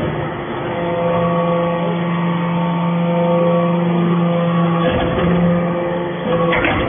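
Hydraulic briquetting press for aluminum chips running: a steady hum from its hydraulic power unit, with clunks about five seconds in and again near the end.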